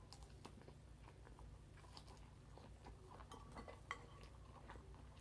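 Faint chewing of a mouthful of fresh leafy salad greens and avocado, with a few soft clicks scattered through it.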